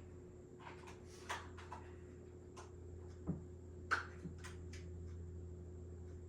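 Scattered light clicks and taps of small parts being handled, the sharpest about three and four seconds in, over a faint steady hum.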